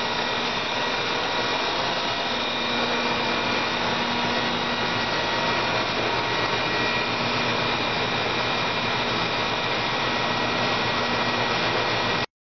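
Steady whirring of a small motor with a constant hum running through it, cutting off abruptly near the end.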